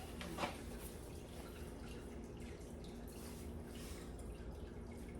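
Quiet room tone with a faint steady hum, a brief click about half a second in, and a few faint scattered ticks.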